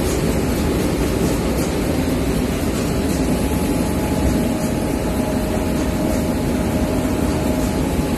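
Seed-sieving and cleaning machine running steadily, a dense even mechanical rumble with no pauses.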